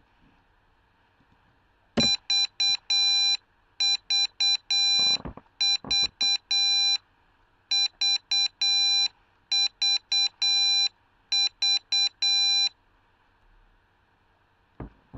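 Morse code keyed out as beeps by an Arduino Uno Morse coder: one steady tone switched on and off in six groups of short and long beeps, each group lasting about a second and a half with brief pauses between them. A single click comes near the end.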